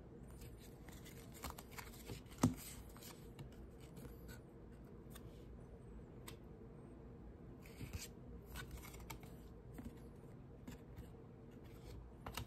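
Baseball trading cards being handled one by one: soft slides and flicks as cards are pulled off a stack, with a sharper tap about two and a half seconds in.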